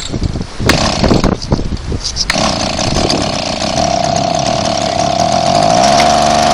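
Small gas bike engine being started: it sputters unevenly for about two seconds, then catches and runs steadily, rising a little in pitch near the end. It is an engine that is not staying running, and something is off in its fuel or carburettor setup.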